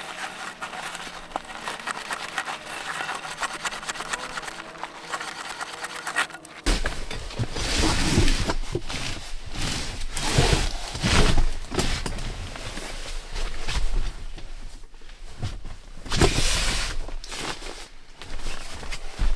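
A frying pan being scraped and scrubbed with snow and a spruce sprig, with snowmobile engines droning and wavering in the background. About six and a half seconds in this gives way to louder rustling and handling of a nylon sleeping bag and cot, with a deep rumble and several swells of rustling.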